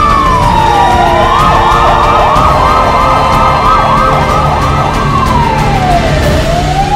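Electronic siren of an escort vehicle with a light bar. A slow wailing tone slides down, then switches to a fast yelp of quick up-and-down sweeps for a few seconds, then falls and begins rising into a slow wail again, over a low rumble.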